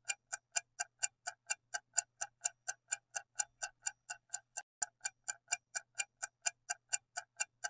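Clock-tick sound effect counting down, an even, quick ticking of about four ticks a second.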